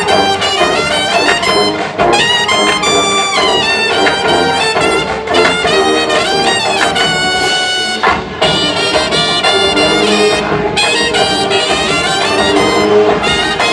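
A brass band playing loudly, with trumpets, trombones and saxophones in a jazz-flavoured arrangement.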